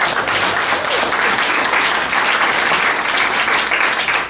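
Audience applauding, a steady dense clapping that tails off at the very end.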